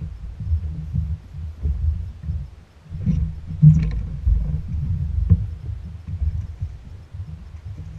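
Wind buffeting an action camera's microphone on open water: an uneven low rumble that swells and drops, with a few sharp knocks in the middle.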